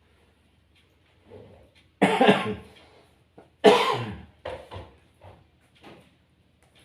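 A person coughing: two hard coughs about a second and a half apart, each trailing off, with a softer cough before them and several smaller ones after.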